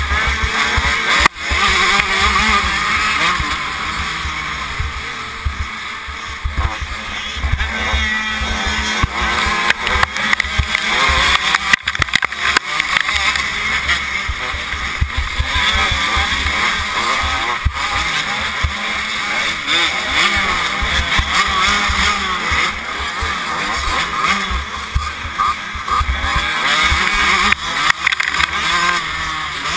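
Dirt bike engine running hard, its pitch rising and falling as the throttle opens and closes, heard from a helmet-mounted camera with wind buffeting the microphone.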